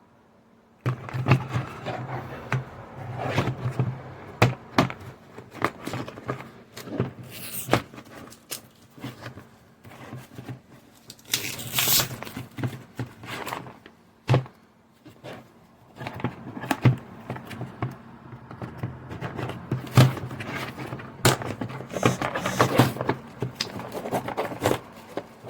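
Objects being handled on a desk, starting about a second in: irregular knocks, taps and scrapes, with a low steady hum underneath.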